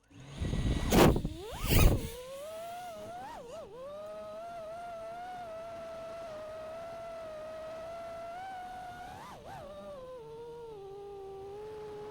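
5-inch FPV racing quadcopter's motors and propellers, with two sharp throttle punches rising in pitch in the first two seconds, then a steady high whine that wavers briefly twice and settles lower near the end.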